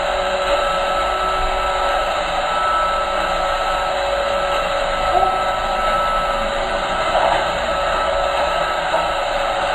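Robot vacuum cleaner's motor running steadily, a continuous whirring hum with a steady whine in it.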